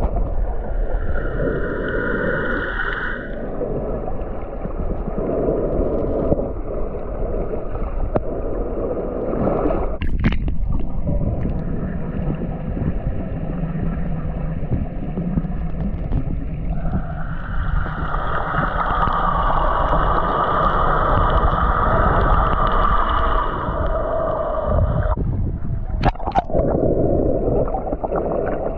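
Muffled underwater sound: a constant gurgling rumble of water with the whine of a boat engine carried through the water, the whine strongest in the first few seconds and again through the latter part. Two sharp knocks, about ten seconds in and near the end.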